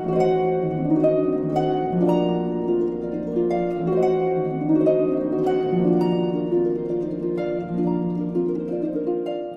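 Background music: a stream of plucked notes over held chords, at an even level.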